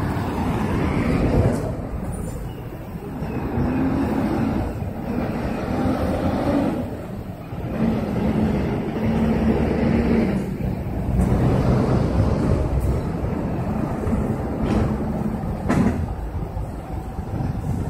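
City street traffic: cars and buses passing, with the low hum of heavy engines coming and going several times.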